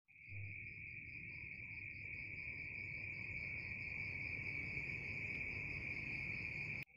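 Cricket trilling steadily as one continuous high-pitched note over a low background rumble, breaking off briefly near the end.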